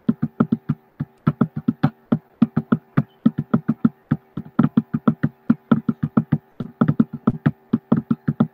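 Rapid, uneven knocking or tapping, about six or seven knocks a second, over a faint steady hum.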